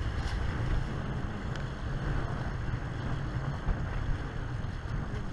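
Steady wind buffeting the camera microphone, with water rushing along the hulls of a Hobie Cat catamaran under sail.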